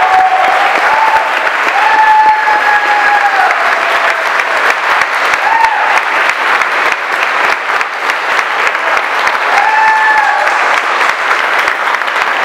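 Large crowd clapping steadily, with a few long whoops rising over the applause.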